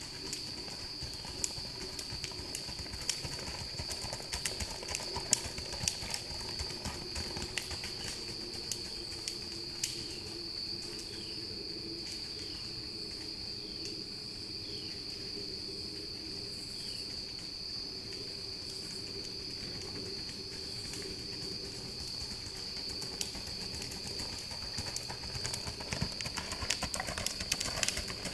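Hoofbeats of a gaited horse ridden at a rack, a fast four-beat gait, on a dirt trail. They grow louder near the end as the horse comes close, over a steady high-pitched drone.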